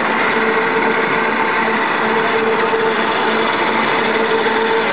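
Single-screw snack pellet extruder running steadily: an even mechanical hum with a constant whine from its motor and drive.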